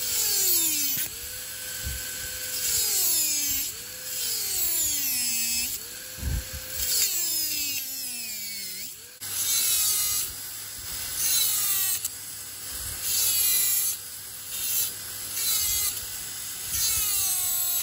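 High-speed dental handpiece whining as its bur cuts through the proximal contact of a typodont lower first molar. The pitch drops each time the bur bears on the tooth and springs back when it is eased off, with deeper drops in the first half and shorter, shallower ones later.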